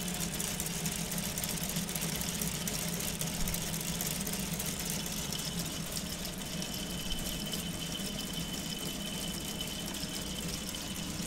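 Small solar-powered electric motor driving a K'nex V8 engine model, its plastic gears, camshafts and pistons turning with a steady whirr. A faint thin high whine joins about halfway through.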